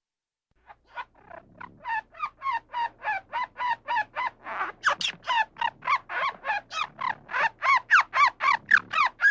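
An animal's rapid series of short, pitched calls, about three a second, starting faint about half a second in and growing louder.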